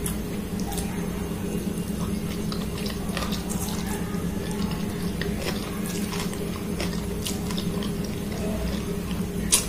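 A person slurping and chewing instant ramen noodles, with wet, clicky mouth sounds and light taps of a fork, and a sharper click near the end. A steady low hum runs underneath.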